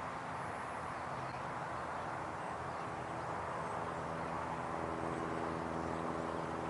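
Steady outdoor background noise with a faint, even machine hum that grows a little clearer about halfway through.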